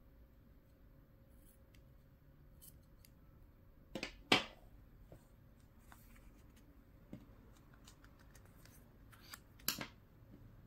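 Small craft scissors snipping yarn: a few faint snips, then two sharp snips close together about four seconds in, followed by light handling clicks and another sharp click near the end.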